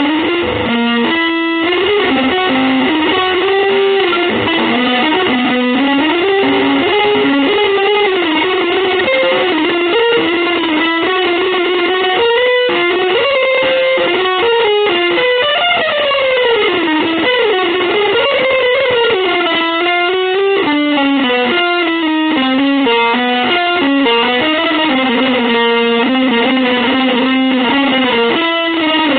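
Electric guitar playing a continuous single-note improvised line, with a few pitch bends near the middle.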